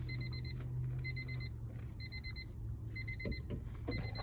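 Electronic beeper sounding in groups of four quick beeps, a group about once a second, over a steady low hum.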